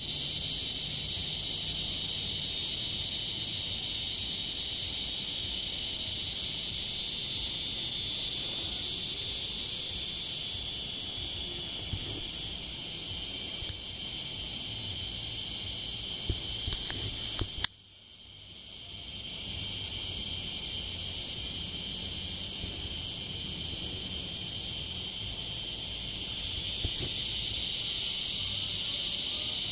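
Northern dusk singing cicada (Neotibicen auletes) calling: a steady, unbroken high buzz. A little past the middle come a few sharp clicks, then the buzz drops away for a second or two and swells back.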